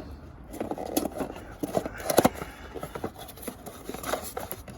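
Hard plastic clicks, taps and scrapes as ignition coil packs and their connectors are handled and pushed into place on a small three-cylinder engine, with the sharpest click about two seconds in.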